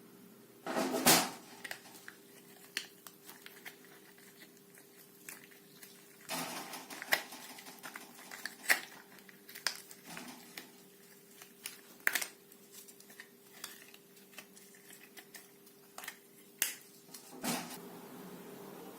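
Irregular clicks, knocks and clatters of small hard objects being handled, louder about a second in, again around six seconds and near the end, over a faint steady hum.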